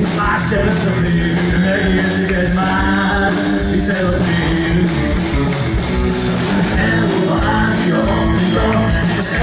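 Live band with electric guitars playing a song, with a man singing over it.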